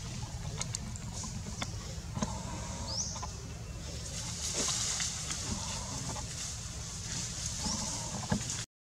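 Birds calling outdoors: clucking fowl and a couple of short rising chirps, over a steady low rumble with scattered light clicks and rustles.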